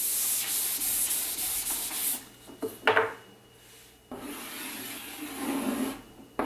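A chalk drawing being rubbed off a blackboard, a loud scrubbing hiss for about two seconds. After a short pause, a stick of chalk scrapes quietly on the board as a circle is drawn.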